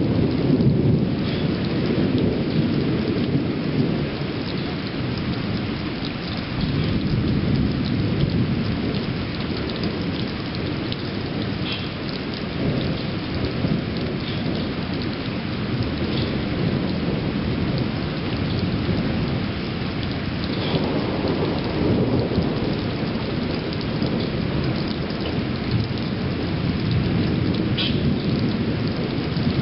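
Steady rain with continuous low thunder rumbling underneath, swelling and easing without ever stopping. A few sharper raindrop ticks stand out now and then.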